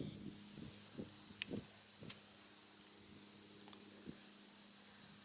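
Insects chirring in a steady, high-pitched chorus, with a few faint taps and a low steady hum underneath.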